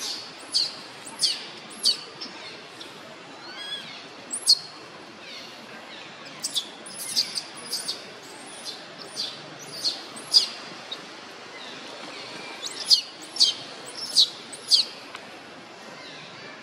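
Baby long-tailed macaque squeaking, more than a dozen short, sharp, high-pitched squeaks at uneven intervals, some in quick clusters.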